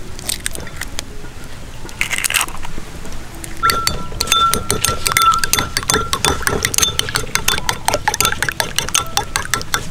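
Metal spoon beating eggs in a small glass bowl: rapid clinking of spoon against glass with a faint ring, starting about three and a half seconds in. A few light taps and clicks come before it.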